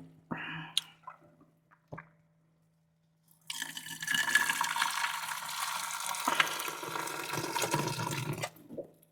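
Pasta water poured from a pan through a strainer: a few light clinks of the pan, then a steady rush of splashing water starting about three and a half seconds in and lasting about five seconds.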